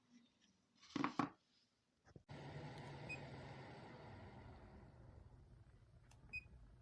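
A brief double knock, then, about two seconds in, an air purifier's fan starts suddenly and runs as a steady hiss. Two short faint beeps come over it.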